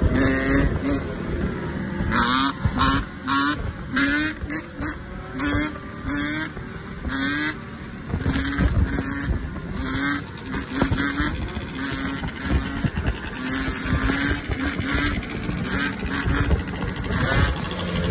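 Dirt bike and ATV engines revving in short, repeated blips, each rising quickly in pitch, over a steady rumble of engines and traffic.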